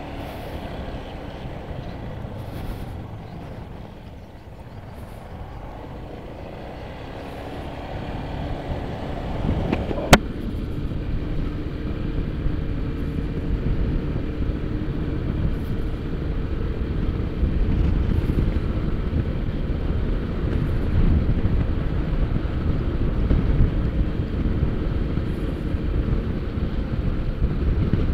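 Honda ADV150 scooter's single-cylinder engine running under way, mixed with wind and road noise, growing louder about a third of the way in. One sharp click about ten seconds in.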